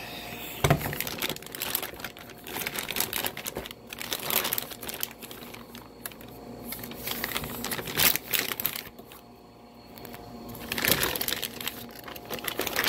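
Clear plastic bag wrapped around a plunge saw crinkling irregularly as the saw is handled and the plastic pulled at, with a couple of knocks, one about a second in.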